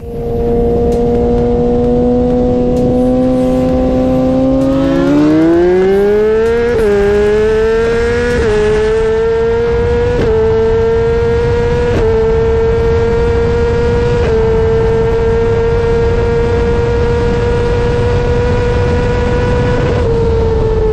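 Sport-bike engine in a roll race: a steady cruising note, then full throttle about five seconds in, the pitch climbing with a sharp drop at each of four quick upshifts, then holding a high steady note and easing off slightly near the end. Heavy wind rush on the microphone throughout.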